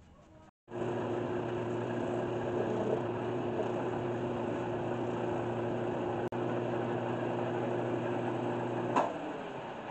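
1981 Delta 12-inch wood lathe running at steady speed with a constant motor hum, a maple tray spinning on it with a cloth held against it. About nine seconds in there is a click, the motor hum stops, and the running noise fades as the lathe winds down.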